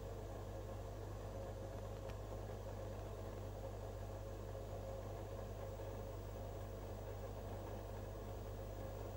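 Steady low electrical hum of aquarium equipment such as the filter pump running, over a faint even hiss, with a single small tick about two seconds in.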